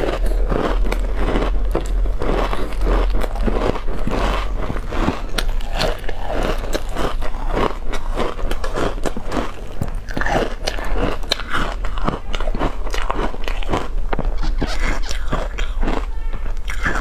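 Ice chips coated in milk powder being bitten and chewed, a fast, irregular run of loud crisp crunches that goes on throughout, picked up close by a lapel microphone.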